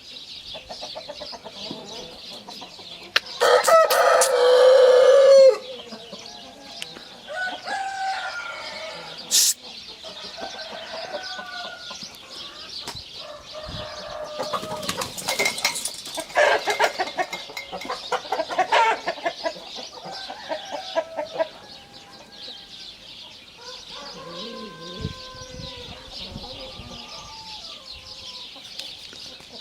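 Chickens clucking throughout, with a rooster giving one loud crow about three seconds in. Around the middle there is a flurry of wing flapping.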